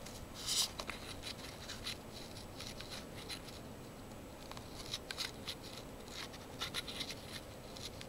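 American Standard heat pump outdoor unit running in heat mode, its fan giving a faint steady hum. Over it come clusters of short scratchy crackles: about half a second in, again around five seconds and around seven seconds.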